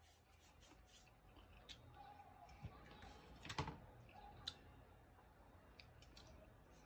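Faint, scattered small clicks and mouth sounds of someone chewing food, with one slightly louder click about three and a half seconds in.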